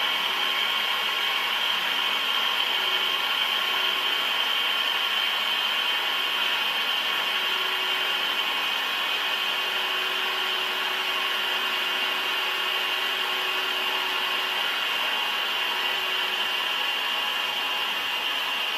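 Large metalworking lathe running steadily while machining, a continuous high-pitched hiss at an even level with no breaks.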